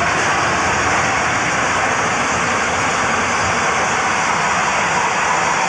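A vehicle running at speed: a loud, steady rushing roar with no distinct beats or pitch changes.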